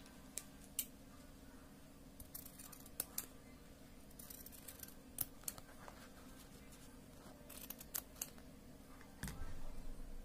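Scissors snipping through the layers of a KN95 mask's non-woven fabric, cutting out a piece: sharp snips in small irregular clusters. Near the end comes a louder bump and rustle as the mask is handled.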